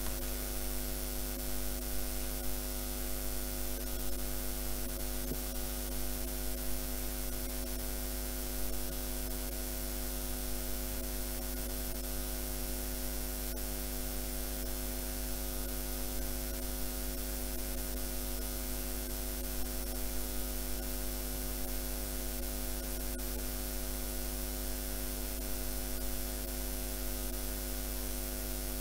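Steady hum with several constant tones over a soft hiss: the background noise of a silent lecture hall, in which the hum of the building's mechanical installations can be heard.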